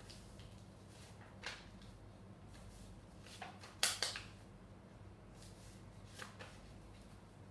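Paper being folded back and forth by hand in an accordion fold: a few short crinkles as it is creased and flipped, the loudest about four seconds in, over a faint steady hum.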